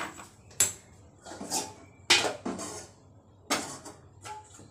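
Metal pots and kitchen utensils clinking and clattering on a counter: a handful of sharp knocks with a short ring, the loudest about two seconds in. The pot is being set up to boil an egg.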